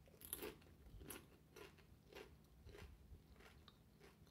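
A mouthful of tortilla-chip nachos being chewed, with faint crunches about twice a second, the first the loudest.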